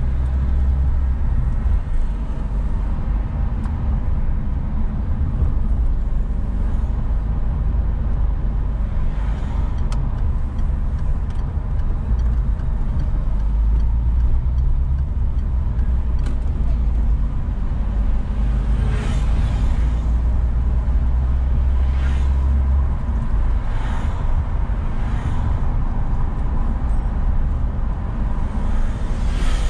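Car driving through city traffic: a steady low engine and road rumble, with several brief swells of hiss from the second half onward, likely passing vehicles.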